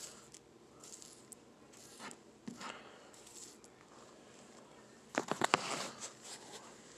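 Dried crickets rustling and clicking as they are handled and tipped out into a hand, with a quick run of sharp rattling clicks about five seconds in, the loudest moment.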